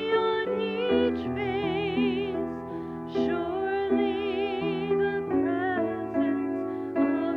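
A solo singer, high-voiced, sings a slow sacred song with strong vibrato on held notes, over sustained keyboard chords that change about once a second.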